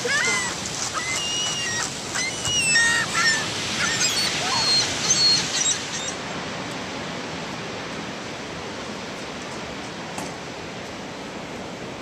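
Ring-billed gulls calling, many short high cries over a steady surf hiss. The calls stop about six seconds in, leaving only the steady hiss of surf and breeze.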